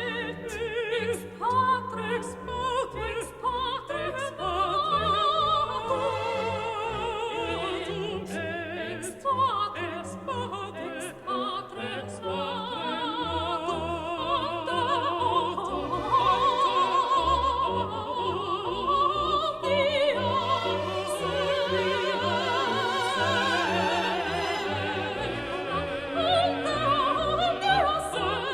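Background music: an operatic singing voice with vibrato over an orchestral accompaniment.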